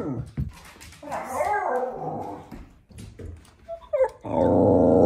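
Dogs growling and yipping at each other: short yips falling in pitch at the start and just before four seconds, a rougher growl in between, and a long, loud growl in the last second.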